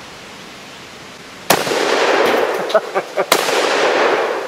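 Two blasts from a sawed-off 12-gauge side-by-side shotgun, a Baikal-made Remington Spartan SPR220, fired about two seconds apart, each with a long echoing tail. A few short clinks fall between the shots.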